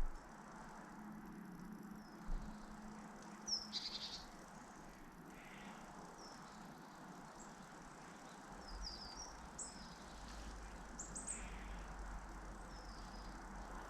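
Scattered short, high bird chirps and calls over a steady outdoor hiss, with a low rumble coming in about two-thirds of the way through.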